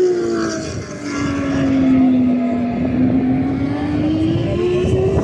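Turismo Carretera race car engine: the note drops for the first two seconds or so as the car slows, then climbs steadily again as it accelerates.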